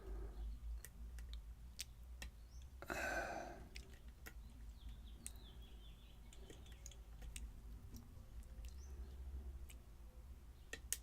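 Faint, scattered metallic clicks and scrapes of a lock pick working the pin tumblers of a pin-tumbler lock under tension, while the lock sits in a false set. A short rustling noise comes about three seconds in.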